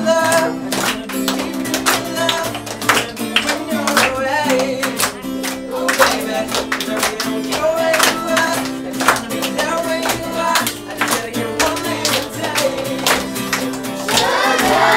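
Acoustic guitar strummed in a steady rhythm while a group of children sing and clap along.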